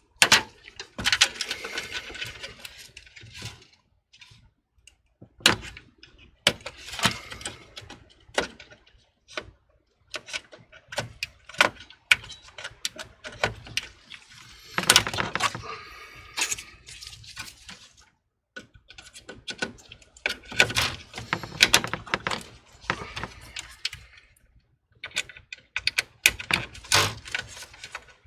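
Hands fitting and handling plastic and metal computer parts inside a PC case: scattered irregular clicks, taps and knocks, with short quiet gaps between bursts.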